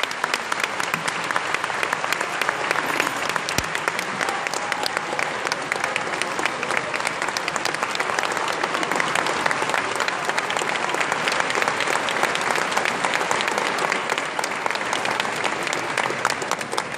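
Audience applauding: a long, steady round of clapping that tapers off at the end.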